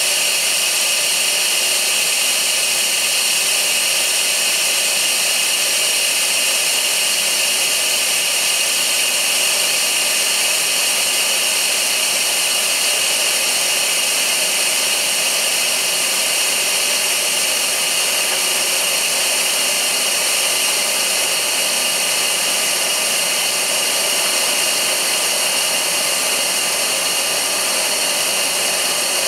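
Steady industrial machinery noise at a chip-dumper yard: a loud, unbroken hiss with several steady high whining tones.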